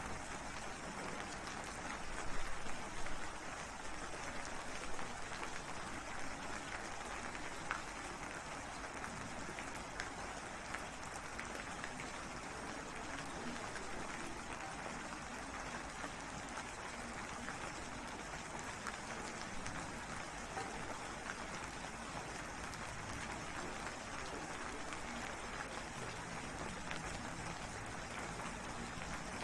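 Steady rain falling, an even hiss of many drops with no pause, briefly a little louder about two to three seconds in.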